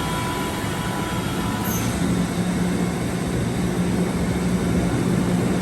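Kaeser AS-31 rotary screw air compressor, driven by a 25 hp electric motor, running steadily with a low hum. Faint whistling tones fade out about a second and a half in.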